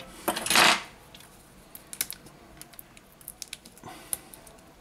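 Hands working on an opened smartphone on a silicone repair mat: a brief scraping rustle about half a second in, then scattered light clicks and taps.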